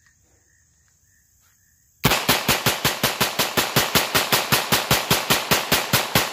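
KEL-TEC PLR-22 .22 LR semi-automatic pistol firing a fast, unbroken string of shots, about seven a second, starting about two seconds in and stopping near the end. The gun cycles round after round without a stoppage after the factory honed its chamber.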